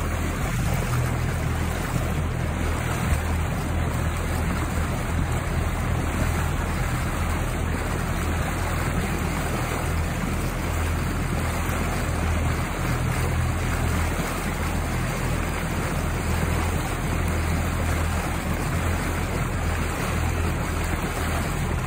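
Steady low hum with a hiss over it, heard aboard a small boat on a lake.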